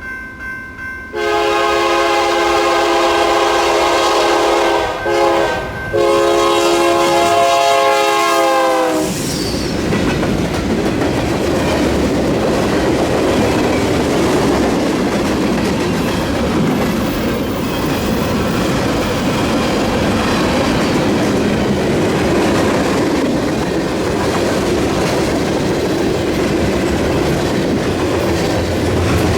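BNSF B40-8W diesel locomotives sounding their horn in several blasts, a short break about five seconds in, the last long blast dropping in pitch as the lead unit passes. It gives way to the steady rumble and wheel clatter of the passing train.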